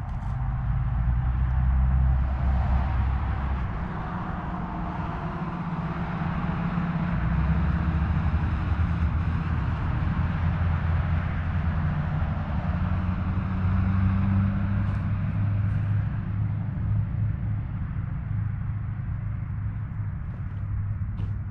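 Road traffic: cars passing, their tyre and engine noise swelling about two seconds in and again from about seven to fourteen seconds, over a low steady rumble.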